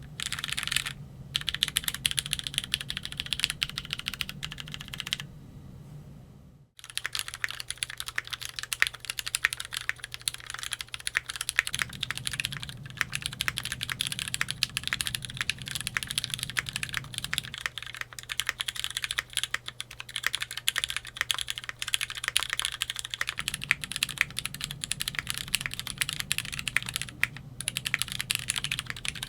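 Typing on a Keychron Q3 tenkeyless mechanical keyboard with Cherry MX Black Hyperglide linear switches and GMK keycaps: fast, steady clacking of keystrokes. The typing drops out for about a second around six seconds in, then resumes. A faint low hum underneath switches on and off every six seconds or so.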